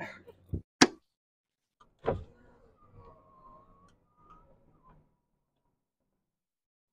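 Pickup truck door being worked: a couple of small knocks and a click, then the door shutting with a thud about two seconds in, followed by faint muffled sounds.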